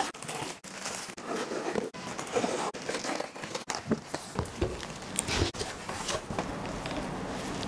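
Plastic stretch wrap crinkling and tearing as it is cut and pulled off a cardboard box, then cardboard flaps being pulled open, in a run of irregular crackles and short scrapes.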